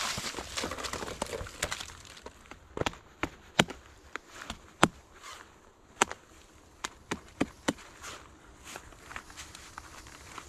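Bark being pulled off a fallen birch log with a crackling rustle, then a knife striking and cutting into the bark in sharp, irregular knocks.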